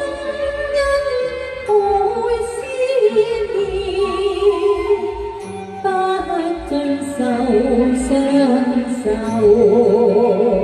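Music from a Chinese pop ballad: a melody line of long, wavering held notes over a steady low backing beat.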